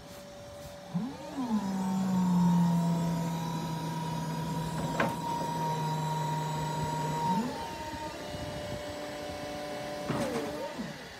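Linde E15 electric forklift's hydraulic pump motor whining as the mast lifts a load. The whine rises in about a second in, holds steady with a sharp click near the middle, and winds down after about six seconds; a shorter burst of the motor with falling pitch comes near the end.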